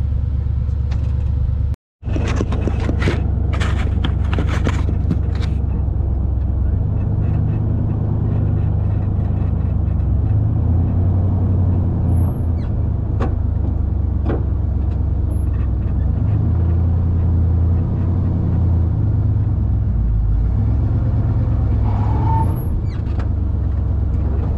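1974 Chevy pickup's engine running at idle, a steady low rumble heard from inside the cab, swelling slightly now and then. A few clicks and knocks sound over it a few seconds in.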